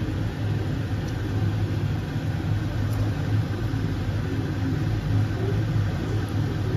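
A steady low machine hum with a light rushing noise over it, unchanging throughout.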